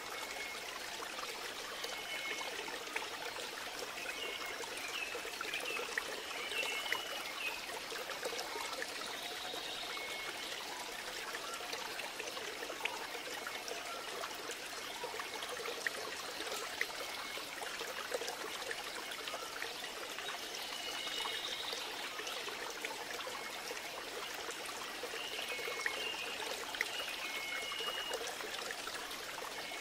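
Steady sound of trickling, running water like a stream, with a few short high notes now and then.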